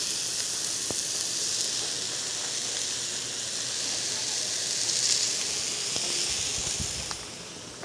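Patties sizzling on a hot tabletop flat-top griddle: a steady frying hiss that grows quieter near the end.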